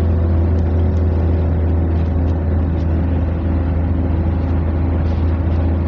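Steady low rumble of a running motor vehicle, with a few faint light ticks.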